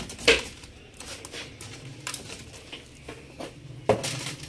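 Laptop keyboard being pried out of its plastic frame: two sharp snaps, one about a third of a second in and one near the end, with lighter clicks and ticks of plastic between.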